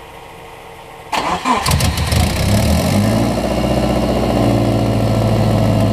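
Subaru Forester's turbocharged flat-four engine cranked by the starter about a second in, catching and settling into a steady idle.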